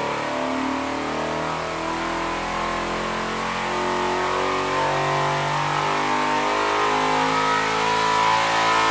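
413-cubic-inch Ford 'Clevor' V8, a Windsor block with Cleveland-style heads, running loud and steady on an engine dyno, growing slightly louder toward the end.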